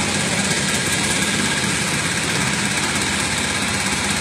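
Boat engine running steadily: a constant low hum under an even hiss.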